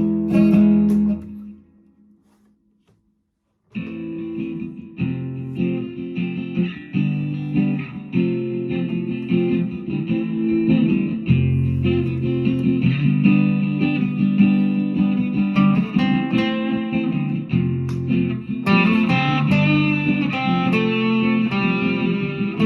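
Ovation 1767 Legend round-back acoustic-electric guitar being played. Notes ring out and fade about a second in, there is a short silence, then playing resumes near four seconds in with a quick run of plucked notes and chords, turning brighter near the end.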